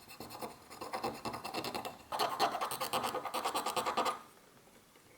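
Quick back-and-forth scratching strokes, as in hand work on a small part, growing louder about two seconds in and stopping about a second before the end.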